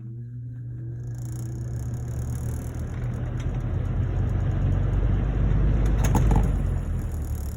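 Lasko 3733 20-inch box fan starting up on low: a motor hum with a rising whine as the blade spins up, then a growing rush of air that swells to its loudest about six seconds in. A couple of brief knocks come at that point.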